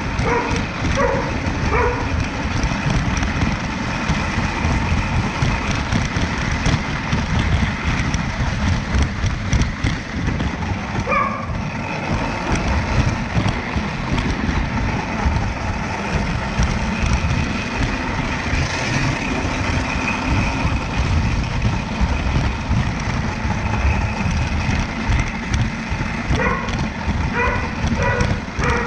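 Lionel Standard Gauge model train running on three-rail tinplate track, heard from a camera riding on it: a steady, close, fluttering rumble of the electric motor, gearing and wheels on the rails. A few short high-pitched sounds come near the start, about eleven seconds in, and near the end.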